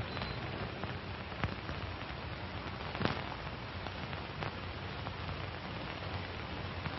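Surface noise of an old film soundtrack: a steady hiss with a few scattered clicks and pops, from a worn print.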